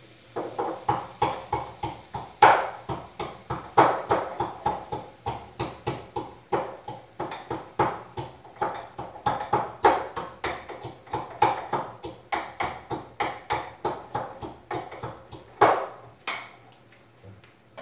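Steady rhythmic knocking of garlic being prepared on a kitchen board, about two or three strikes a second, stopping near the end.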